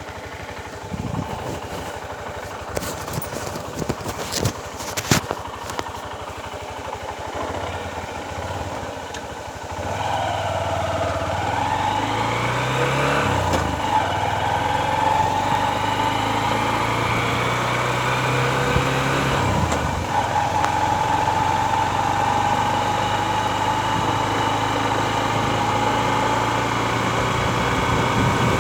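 Honda Livo 110cc motorcycle: a few clicks and knocks, then its single-cylinder engine running. About halfway it briefly rises in pitch as it revs, then settles to a steady note while riding.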